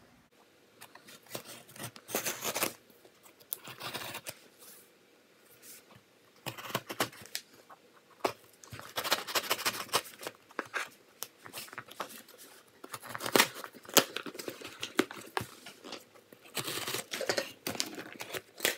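Packing tape and a cardboard box being cut with scissors and torn open by hand, in irregular bursts of ripping and rustling with short pauses between them.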